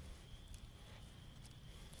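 Near silence: faint outdoor ambience with a low rumble and a few soft ticks.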